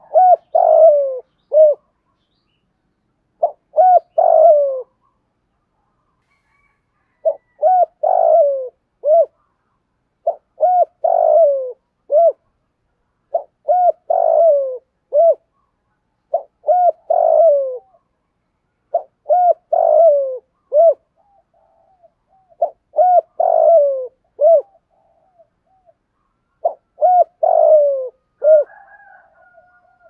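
Spotted dove cooing: a phrase of several coo notes, repeated about every three seconds with short silences between. The voice is what keepers call a 'thổ' (earthy) voice with a touch of 'đồng' (brassy).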